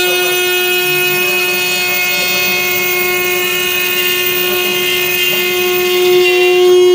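CNC router running, giving a steady single-pitched whine with overtones that grows slightly louder near the end.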